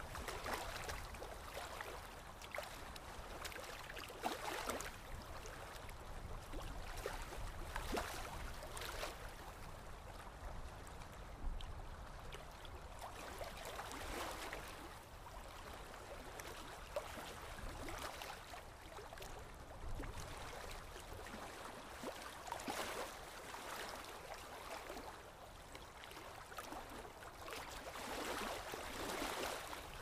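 Small stream babbling and gurgling over stones, the flow swelling and easing every few seconds, with a low wind rumble underneath.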